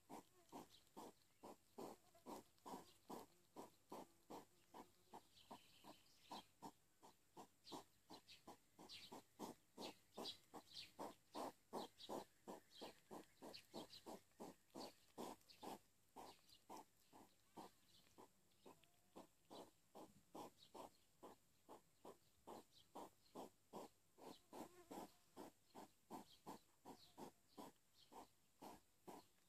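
European hedgehogs eating from a glass bowl: faint, steady wet smacking and chewing, about three chews a second.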